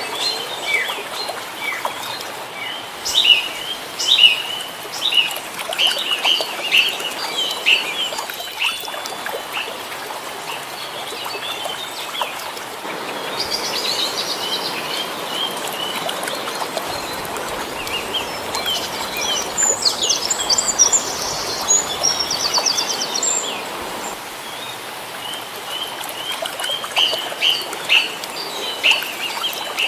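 Small birds chirping over and over in short high calls, with a brief fast high trill about twenty seconds in.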